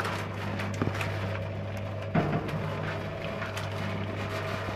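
Mechanical abon-frying machine running with a steady hum, its motor-driven stirrer paddles turning through shredded meat floss in a steel pan. Short scrapes and knocks come now and then, the loudest about two seconds in.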